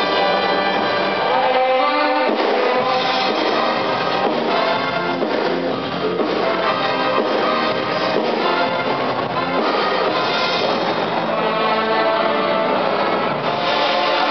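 Loud music with brass instruments, played continuously.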